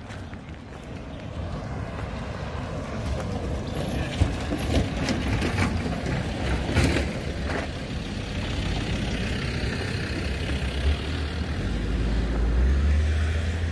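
A car driving past on the road, heard as a steady rumble with scattered clicks and knocks around the middle; a deeper rumble swells near the end.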